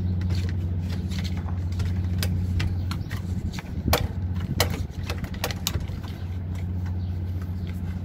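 Plastic card being worked into the gap of a door at a knob lockset to slip the latch: a series of sharp clicks and rattles from the card, latch and knob, the loudest about four seconds in. A steady low engine-like hum sounds underneath.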